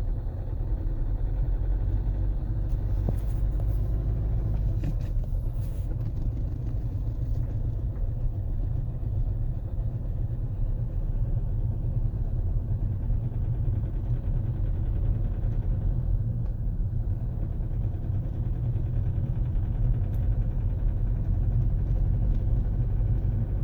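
Toyota 2AD-FHV common-rail diesel running under load at low revs on three cylinders, with one injector unplugged. A steady low rumble with a rattling knock, the sign that the faulty injector is still connected.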